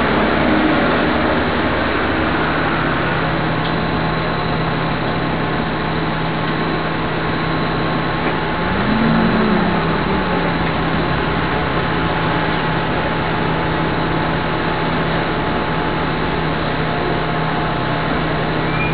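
Dennis Condor double-decker bus's diesel engine running, heard from inside the lower deck, with a brief rise and fall in engine speed about halfway through.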